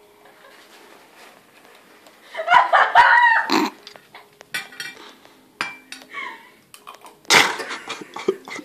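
A metal spoon clinking and scraping against a ceramic soup bowl in scattered knocks. A short voice sound without words comes about two and a half seconds in and is the loudest thing, followed later by a louder clatter near the end.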